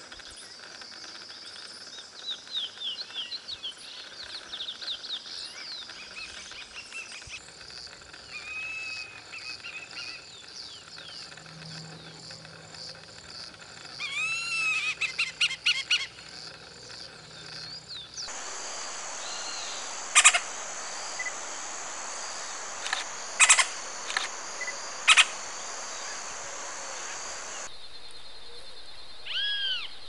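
Wild bird sounds in several clips. First a male chestnut-bellied seed finch (curió) sings a long run of quick whistled notes. Then, over a steady high hiss, a hawk gives a few loud sharp calls several seconds apart. Near the end a turquoise-fronted parrot calls.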